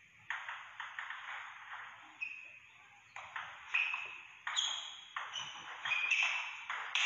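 Table tennis ball striking the bats and bouncing on the table in a rally: sharp pocks, each with a short ring, a couple at the start and then a quicker run of hits from about three seconds in.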